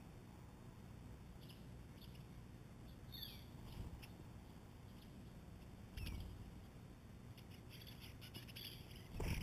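Faint, short songbird calls and chirps, a few scattered through and several close together near the end, from birds at a mealworm feeder. A brief louder rustle comes right at the end.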